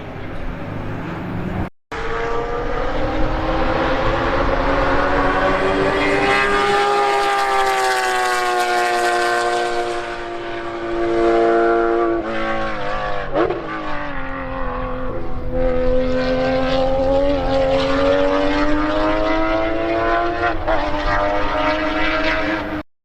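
Race car engine running hard on a circuit, a strong steady engine note that slowly rises and falls, dropping in pitch about halfway through with a quick wobble around a gear change.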